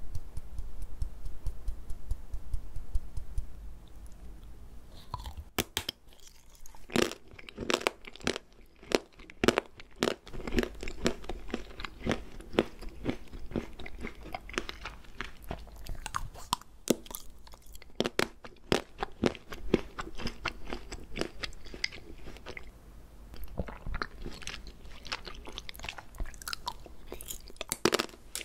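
Close-miked ASMR eating sounds: after light clicking in the first few seconds, a crisp decoration from the top of an ice cream cake is bitten and chewed, with sharp crunches and mouth clicks from about five seconds in.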